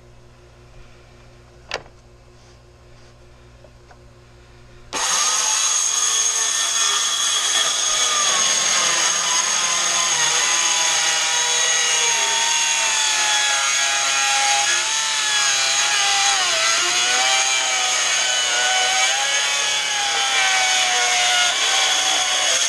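Cordless circular saw starting up suddenly about five seconds in and ripping a long cut along the wooden door boards on a guide track, its whine sagging and wavering in pitch as the blade works through the wood. It stops right at the end. A single sharp click comes about two seconds in, before the saw starts.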